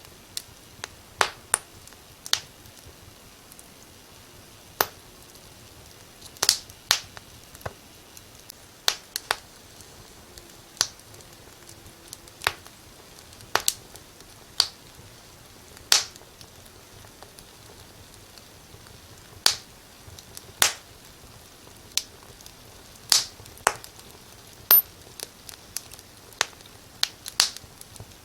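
Wood fire crackling in a fireplace: irregular sharp pops and snaps, one or two a second, over a faint steady hiss.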